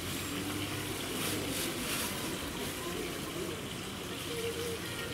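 Steady rush of running water, with faint voices in the background.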